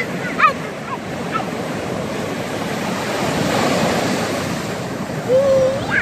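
Small sea waves washing up the sand at the water's edge, the surf swelling to a peak about halfway through. A short high voice sounds about half a second in, and another high call rises in pitch near the end.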